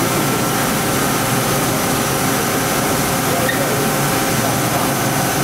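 OKK VP600 five-axis vertical machining center running: a steady mechanical whir with thin, even whines, as the spindle and end mill feed down toward the workpiece.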